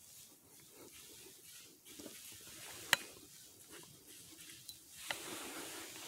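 Faint, uneven crunching and rustling of dry fallen leaves under a deer walking close behind the listener. A single sharp click about three seconds in is the loudest sound, with a smaller one near five seconds.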